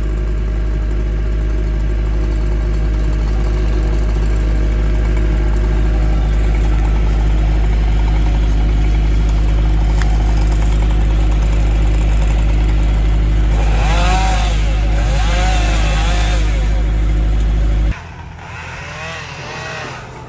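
Excavator diesel engine running steadily with a deep drone. A few wavering whines rise over it about two-thirds of the way through, and near the end the engine sound cuts off abruptly, leaving a much quieter background.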